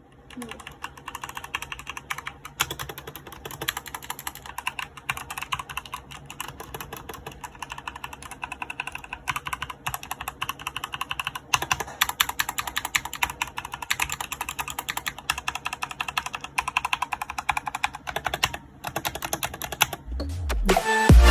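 Typing on a Machenike K7 mechanical keyboard with black switches: a continuous, fast run of key strokes with a brief pause near the end.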